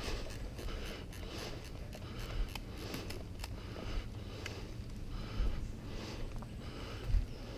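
Rustling of clothing and gear close to the microphone, with scattered sharp clicks and a few low bumps.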